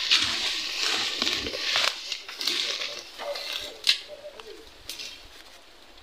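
Rustling of leaves and brush as the phone moves through dense undergrowth, with a few short, low bird calls in the middle and a sharp click near four seconds.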